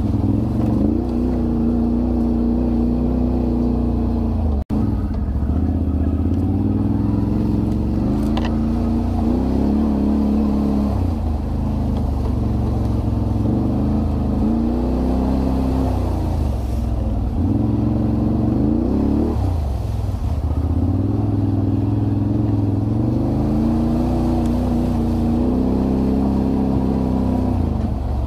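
An off-road vehicle's engine running under changing throttle, its pitch rising and falling again and again as it is revved and eased off. The sound drops out for an instant about four and a half seconds in.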